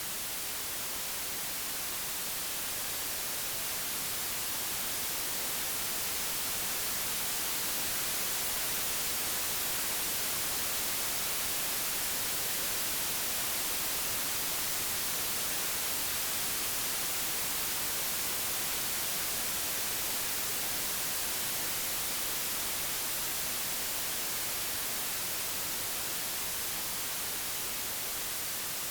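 Digitally generated white noise: a steady, even hiss, brightest in the treble. Its loudness swells slightly toward the middle and eases off a little near the end.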